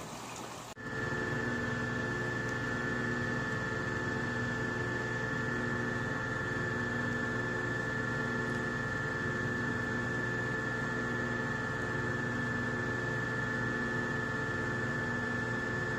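A 750 kW hydroelectric turbine-generator set running steadily at load: a constant low hum with a high, steady whine above it. A moment of rushing water is heard before it cuts in about a second in.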